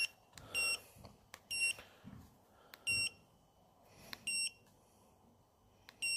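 Autel AutoLink AL319 handheld OBD2 code scanner giving a short, high key beep at each button press as the erase-trouble-codes menu is stepped through. About five beeps come at uneven intervals of one to one and a half seconds, with faint clicks of the buttons between them.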